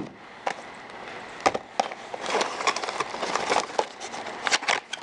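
Cardboard boxes of drill chucks being picked up and shifted against each other on a table: irregular light taps, knocks and scrapes of cardboard.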